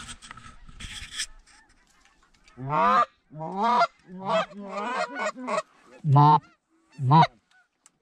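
Hunter's goose call blown in the blind: a run of loud honks and clucks imitating Canada geese, calling to an incoming flock. Some calls are drawn out and some short and quick, starting about two and a half seconds in, after a brief rustle.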